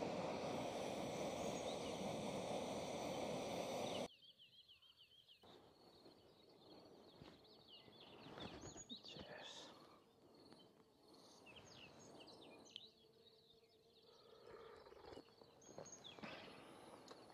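A loud, steady rush of noise cuts off suddenly about four seconds in. After it comes quiet open air with small birds chirping and calling again and again.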